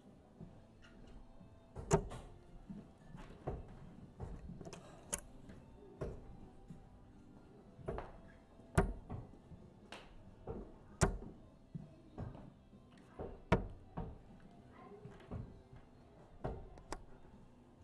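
Steel-tip darts striking a Winmau Blade 6 bristle dartboard: short sharp knocks, single or in quick pairs, a second or two apart, over faint background music.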